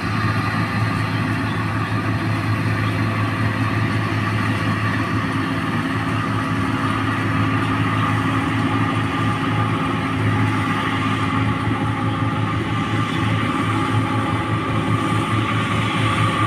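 New Holland 1545 combine harvester running steadily as it harvests rice: a constant low engine hum with a steady higher machinery whine over it.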